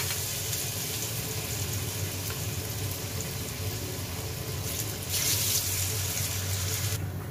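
Besan-battered jackfruit seed chops deep-frying in hot oil, a steady sizzle from chops just lowered into the pan. It swells briefly about five seconds in and drops away near the end.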